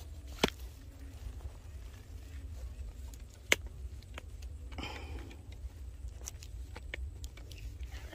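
Steady low wind rumble on the microphone, with a few sharp clicks from handling of the fishing gear and a brief rustle about five seconds in.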